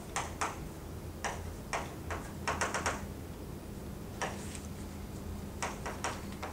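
Chalk tapping and stroking on a blackboard as symbols are written: short, sharp, irregular clicks, with a quick run of taps about two and a half seconds in. A low steady hum runs underneath.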